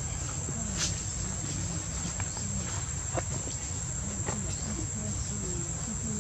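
Steady high-pitched insect drone, with a low rumble underneath and a few faint clicks.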